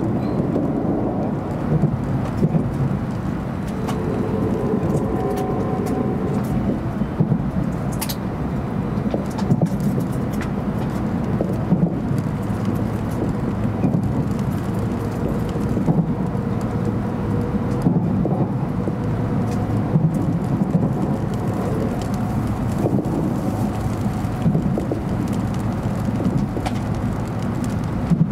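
Steady low rumble of a 700 Series Shinkansen running, heard from inside the passenger car, with occasional short knocks from the running gear and a faint whine that comes and goes.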